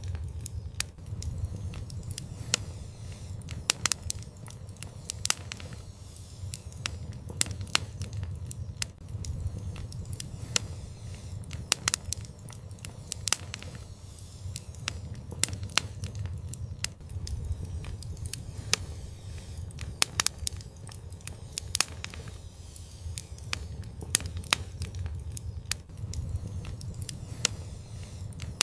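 Fireplace fire crackling: frequent irregular sharp pops and snaps over a steady low rumble of the flames.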